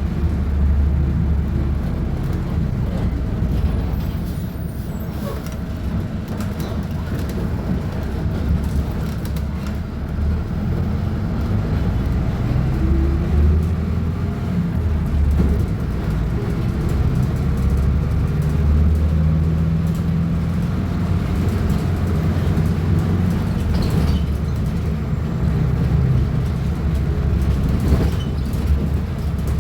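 VolksBus 15.190 OD bus diesel engine running, a steady low drone whose pitch shifts now and then, rising briefly about midway.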